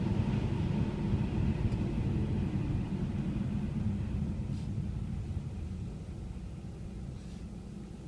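Low road-and-engine rumble inside a car's cabin, fading steadily over several seconds as the car slows for a yellow light.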